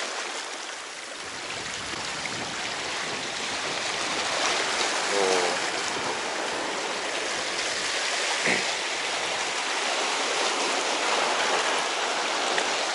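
Small sea waves washing and splashing against shoreline rocks: a steady rushing of surf.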